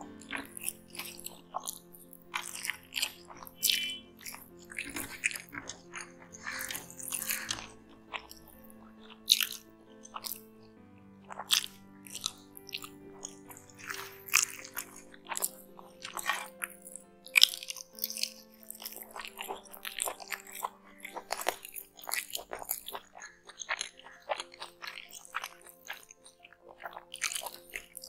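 Close-miked chewing and mouth sounds of a man eating mutton biryani by hand: many short, irregular wet clicks and smacks as he chews. Soft background music with sustained tones plays underneath.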